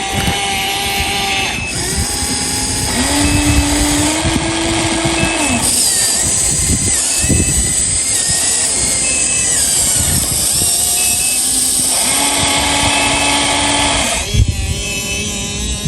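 Huina radio-controlled excavator's small electric motors whining as its functions are worked. The pitch of the whine shifts in steps every couple of seconds as one movement stops and another starts.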